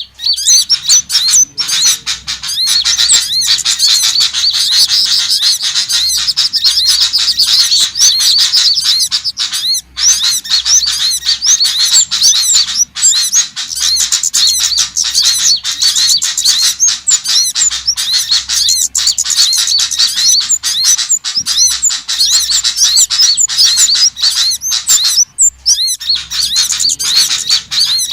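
A bird-lure recording of small songbirds chirping and twittering rapidly and without a break. The calls are high-pitched and dense, with only brief pauses near ten seconds in and again a few seconds before the end, and the pattern repeats every few seconds like a loop.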